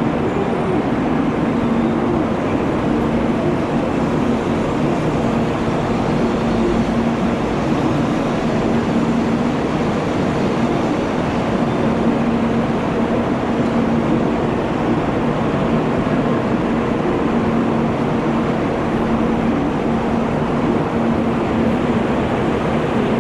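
N700A Shinkansen train pulling out of the platform and running past, a steady rushing noise with a steady low hum under it.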